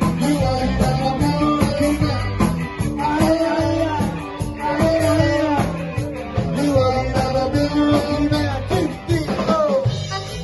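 Live band playing a ska song: a man singing into a microphone over drums, electric guitar and bass, with a steady beat.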